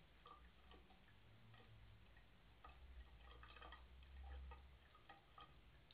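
Faint, quick, irregular clicks of a cat lapping water at a bathroom tap.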